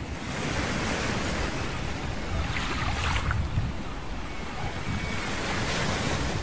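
Ocean surf washing onto a sandy beach as a steady rush, with wind buffeting the microphone.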